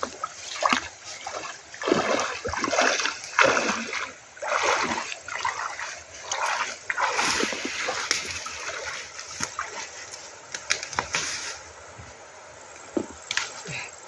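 Water splashing and sloshing in irregular bursts for about eleven seconds, then dying down, with a couple of sharp clicks near the end.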